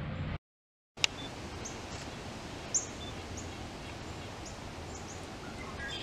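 Scattered short, high-pitched songbird chirps, roughly one a second and one louder than the rest, over a steady outdoor background hiss. Near the start the sound drops out for about half a second and comes back with a click.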